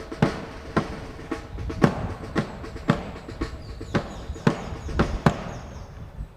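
Parade band drum beating steady marching time, about two strokes a second, with the beats stopping shortly before the end. Wind rumbles on the microphone underneath.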